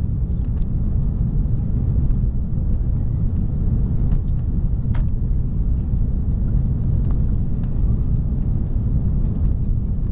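Steady low rumble inside the cabin of an Airbus A340-300 on approach to land: the noise of its four CFM56 engines and the airflow, heard from a window seat over the wing with the flaps extended.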